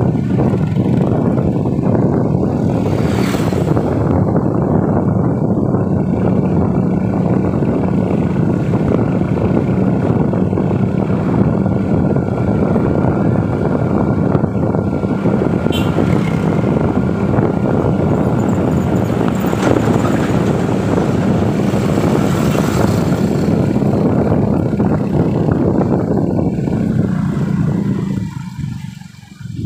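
Steady rush of wind and road noise from a moving vehicle, with an engine hum underneath. The noise drops away sharply near the end.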